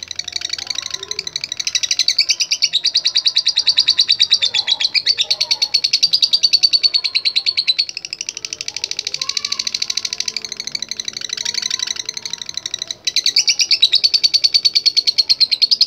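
Lovebird chattering in a long, very rapid run of high chirps: the 'ngekek' of a singing male. The run breaks off briefly near the end, then picks up again.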